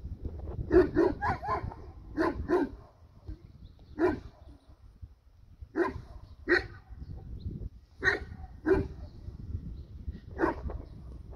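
Livestock guardian dogs giving warning barks at a wolf: about a dozen short, sharp barks in irregular groups, starting with a quick run of four, then pairs and single barks every second or two, over a low rumble.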